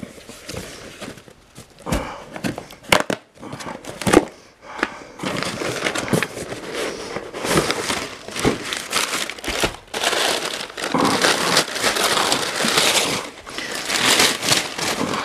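Brown packing paper crinkling and rustling, with a few sharp knocks about two to four seconds in, then dense, continuous crinkling from about five seconds on.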